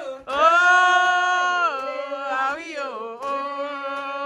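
A woman singing two long held notes: the first lasts over a second and is followed by a short gliding phrase, and the second starts about three seconds in.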